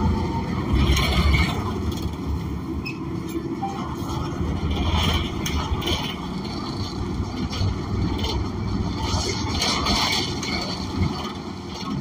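Cabin noise inside a 2016 ENC Axess bus on the move, with its Cummins Westport ISL G natural-gas engine giving a steady low rumble. Short louder bursts of noise come several times, about a second in, around five and six seconds, and near ten seconds.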